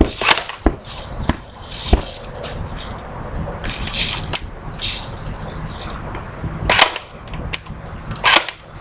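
Scattered sharp clicks and pops, a regular run of light clicks in the first two seconds, then a few louder cracks, from airsoft gear being readied.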